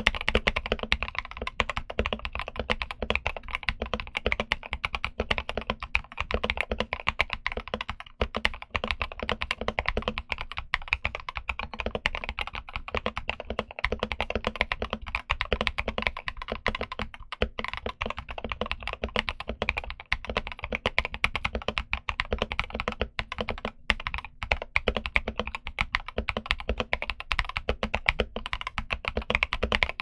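Continuous fast typing on a modded RK61 60% mechanical keyboard fitted with WS Morandi linear switches and MT3-profile keycaps: a steady, dense run of keystrokes, several a second.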